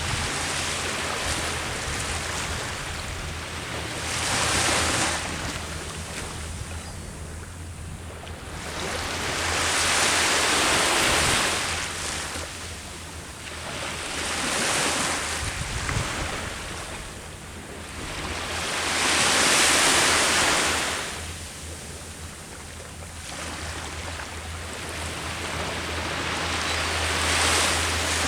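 Ocean waves breaking on the shore, the surf swelling and falling back in slow surges every four to six seconds.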